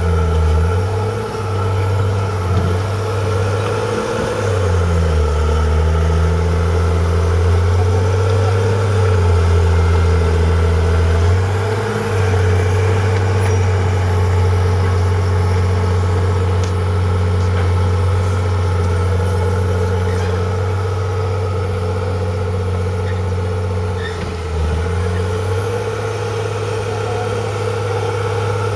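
Diesel engine of heavy construction machinery running steadily, its engine speed rising and falling several times in the first twelve seconds and once more near the end.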